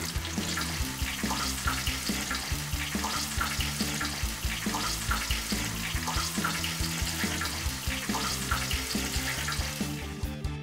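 Cubes of flour-and-cornstarch-coated tofu frying in hot oil, a steady bubbling sizzle that fades near the end, with background music underneath.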